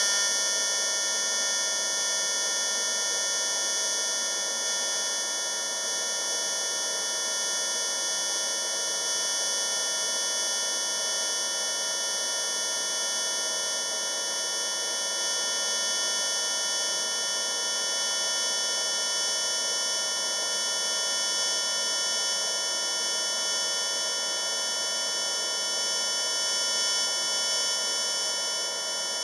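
TIG welding arc from a Jasic TIG 200P AC/DC PFC inverter welder on pulsed DC, switching 200 times a second between 80 A and 30 A, giving a steady high-pitched buzz.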